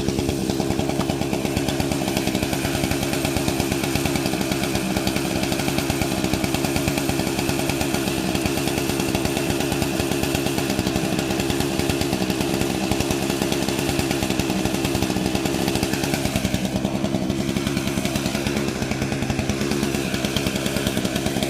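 Gasoline chainsaw running steadily at high speed, bucking a log to length.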